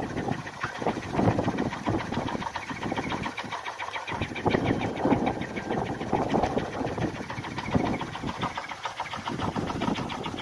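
Kolecer, a wooden wind propeller on a pole, spinning in the wind with a rapid buzzing drone that swells and fades with the gusts.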